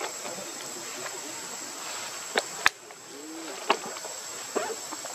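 Steady high-pitched insect drone over a faint hiss, broken by a few sharp clicks and one short, low, rising-then-falling call a little after the middle.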